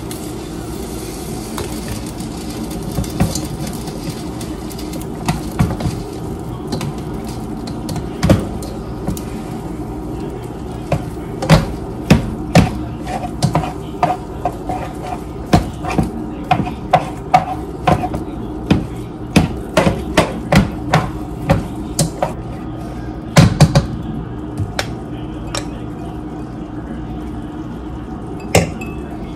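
A cooking utensil knocking and scraping against a metal pot while food is stirred: a run of sharp clacks, scattered at first and then coming one to three a second through the middle, over a steady low hum.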